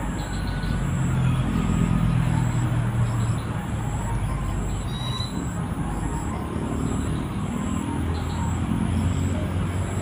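Steady low rumble of a motor vehicle's engine, strongest for a couple of seconds near the start and swelling again near the end.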